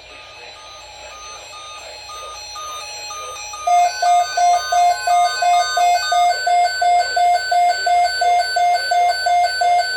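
Weather radio alert alarm beeping, signalling an incoming alert. A faint, higher beep repeats at first. About four seconds in, a loud, lower beeping starts, about three beeps a second, and keeps going.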